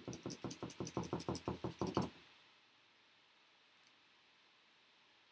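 A paintbrush being knocked rapidly against a hard surface: about a dozen sharp knocks, roughly six a second, stopping about two seconds in.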